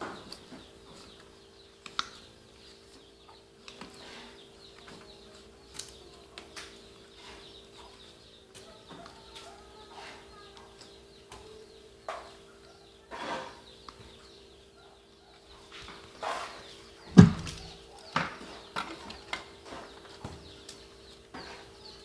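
Gloved hands working wires and a tool inside a metal circuit-breaker panel box: scattered light clicks and taps, with one loud knock about seventeen seconds in, over a steady low hum.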